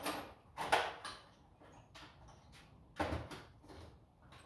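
Three separate knocks and clatters of hand tools being handled and set down, the loudest about a second in, with quieter rustling between.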